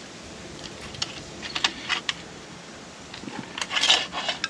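Light metallic clicks and clinks of a wrench and license plate screws being handled and fitted, in scattered bunches, the loudest near the end.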